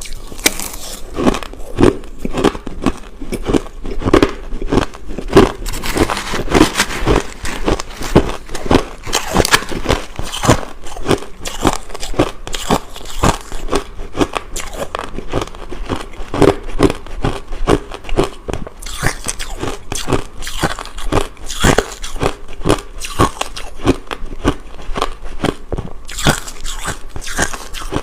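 A person biting and chewing crushed ice: rapid, continuous crunching, several crunches a second.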